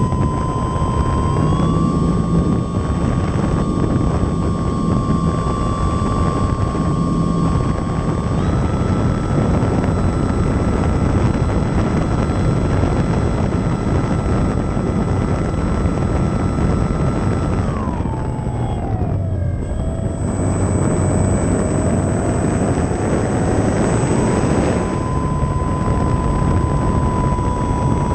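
Baby Ace RC model airplane's motor and propeller running in flight, heard from on board with a strong wind rush over it. Its whine steps up in pitch twice early on, drops steeply about 18 seconds in, then rises back a few seconds later.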